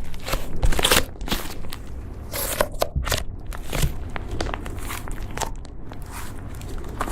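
Slime being squeezed and pressed by hand, making irregular crackling, crunchy pops and squishes.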